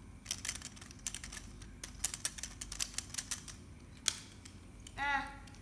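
Plastic Lego bricks clicking and rattling in quick irregular ticks as the small excavator model is handled, with one sharper knock about four seconds in as it is set down on the tile floor. A brief voice sound near the end.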